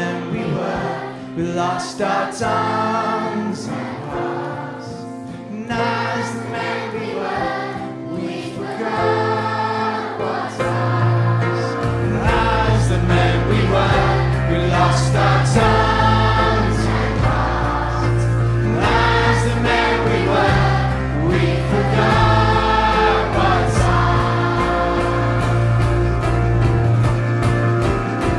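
Children's choir singing with a band in a live pop song performance; a strong bass comes in about twelve seconds in and the music grows fuller and louder.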